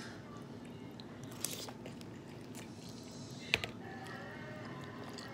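A person eating noodles: quiet chewing and slurping. There are a few sharp clicks, the loudest about three and a half seconds in, with a smaller one just after it.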